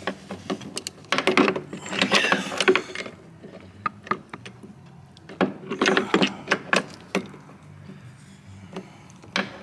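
Hand tools clicking and clattering against metal in short irregular bursts as bolts are worked in on a brake assembly, over a low steady hum.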